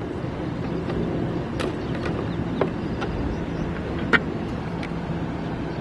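RV rooftop air conditioner running with a newly fitted blower fan, a steady hum with a low tone. A few sharp clicks and knocks sound over it, the loudest about four seconds in.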